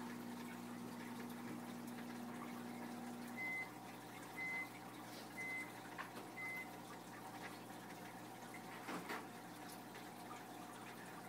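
Aquarium water running steadily through a filter, with a low hum that stops a few seconds in. Then four short high electronic beeps sound about a second apart, and a brief swish comes near the end.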